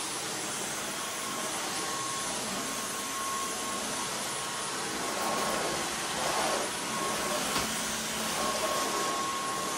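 Dyson V15 Outsize cordless stick vacuum running steadily on medium power, its fluffy soft-roller floor head pushed across a laminate floor. The rush of air carries a thin steady whine.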